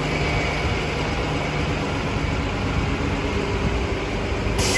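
Transit bus engine running loud and steady at idle at the stop. A hiss sets in near the end.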